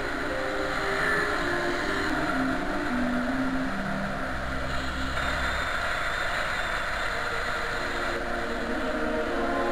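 Steady wind and rolling noise picked up by an action camera on a mountain bike moving along a paved road.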